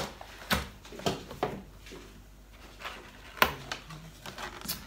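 Clear plastic cake tray and its snap-on lid being handled on a countertop: a few light plastic clicks and taps as the lid is worked loose and lifted, the sharpest about three and a half seconds in.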